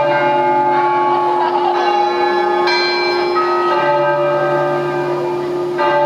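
Bell tones ringing loudly, several pitches overlapping and held, with fresh notes sounding about halfway through and again near the end.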